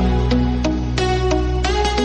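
Background music: electronic melody with gliding synth notes over a steady bass line.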